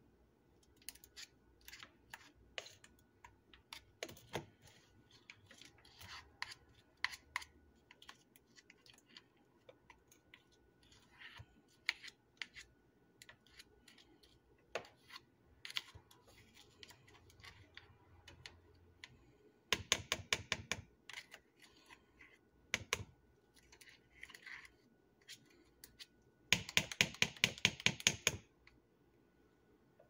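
Spatula scraping and tapping inside a plastic blender cup while scooping out a thick smoothie: scattered faint clicks and scrapes, with two quick runs of rapid taps in the second half.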